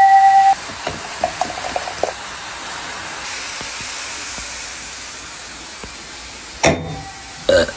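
Broth simmering in a copper chimney hotpot: a steady soft hiss. It opens with a loud steady high tone that cuts off abruptly about half a second in, followed by a few light clinks, and two short knocks come near the end.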